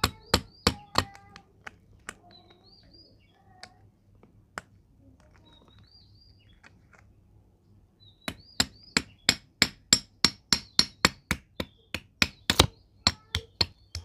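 Hammer blows on a steel drift held against a tractor differential's bevel-gear and thrust-washer assembly, sharp metal-on-metal strikes. A quick run of strikes at the start, a few scattered taps in the middle, then a steady run of about four blows a second through the second half.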